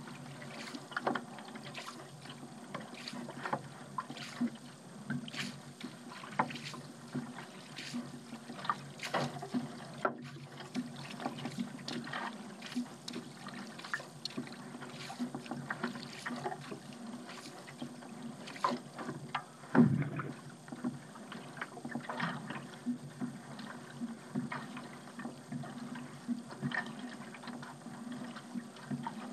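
A paddle dipping and pulling through sea water, with small splashes and drips coming steadily through the strokes. One louder thump about twenty seconds in.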